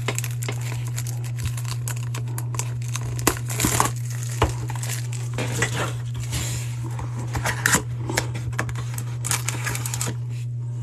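Plastic shrink wrap crinkling and tearing as it is peeled off a Topps Triple Threads mini box of trading cards, with scrapes and taps of the cardboard box being opened, over a steady low hum. The crackling thins out near the end.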